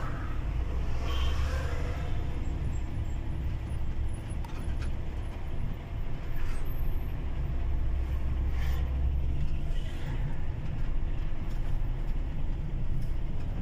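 Heavy truck driving at a steady cruise, heard from inside the cab: a steady low engine rumble with road and tyre noise.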